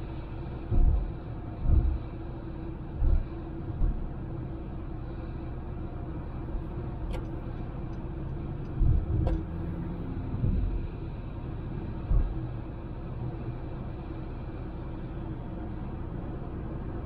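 Honda Civic driving, a steady road and engine noise, broken by several short low thumps over the first twelve seconds or so.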